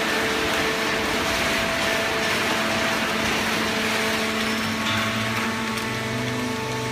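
Horizontal hydraulic baling press and its feed conveyor running: a steady whirring machine noise with a low hum, and a deeper hum comes in about five seconds in.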